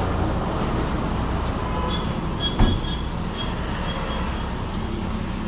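A steady low rumble with a single short knock about halfway through, and faint short high beeps in the middle.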